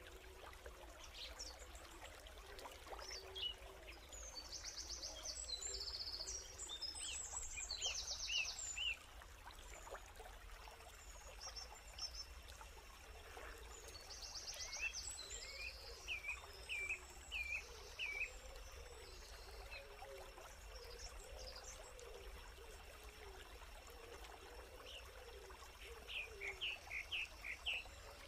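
Forest ambience: birds calling in runs of four or five short whistled notes, several times, with high buzzing trills. A faint trickle of creek water runs beneath.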